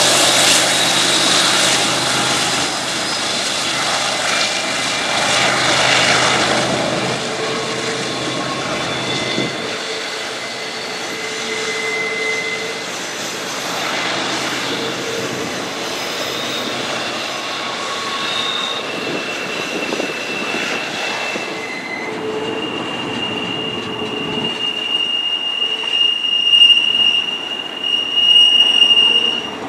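Double-stack intermodal train led by GE ES44AC diesel locomotives rolling past on a curve. The locomotives' engines hum low in the first several seconds, then the wheels squeal against the rails in short high tones that come and go. From about two-thirds of the way in, a single high steady squeal holds and grows loudest near the end.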